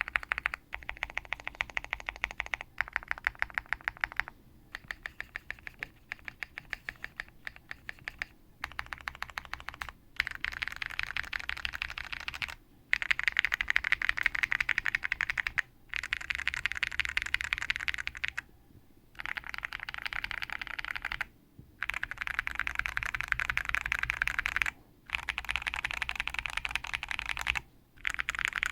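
Typing on a KBDfans Tiger 80 mechanical keyboard with lubed Aeboards Naevy V2 tactile switches and thick PBT Cherry-profile keycaps. The keystrokes come in quick runs of several seconds, each run broken by a short pause.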